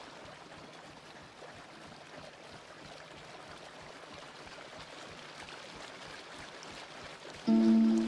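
Opening of an ambient electronic track: a faint, steady hiss like running water that slowly grows a little louder, then a loud held chord of steady tones comes in suddenly near the end.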